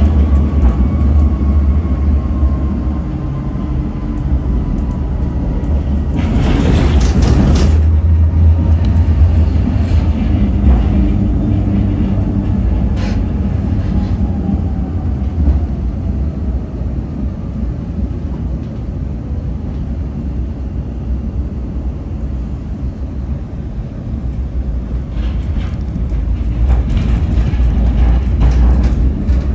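Tram ride noise heard from inside the car: a steady low rumble of wheels on rail, with a faint motor whine slowly falling in pitch. A passing vehicle swells by about six seconds in, and a bus rushes past near the end.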